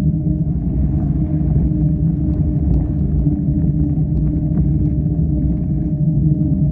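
A small vehicle motor running at a steady, unchanging pitch over a low rumble of tyres rolling on a sandy dirt trail, with scattered small ticks.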